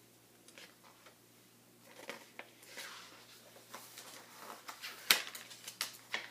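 Pages of a picture book being turned and handled: paper rustling with light taps, starting about two seconds in, and one sharp snap of a page about five seconds in.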